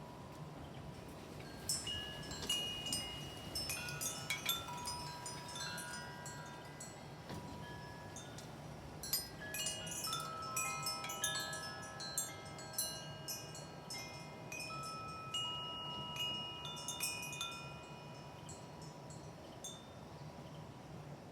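Handmade pipe wind chime tuned to 528 Hz, its pipes struck by the wind and ringing in clear overlapping tones. The strikes come thick and fast through the middle and thin out near the end.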